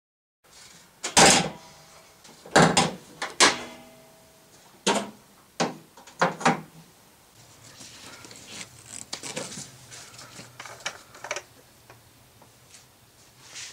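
A run of hard clunks and knocks from work at the front of a Honda S2000 with its hood up, one of them followed by a short metallic ring. Then come lighter clicks and handling noises as the oil filler cap on the valve cover is taken off.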